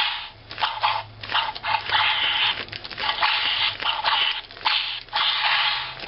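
Tinny sound effects from the small built-in speaker of a 2007 Indiana Jones 12-inch action figure with a whipping action arm. The effects come as a quick run of crackly, hissing bursts, some short and some lasting about a second.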